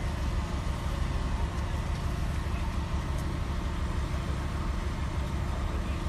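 An engine running steadily, with a low rumble.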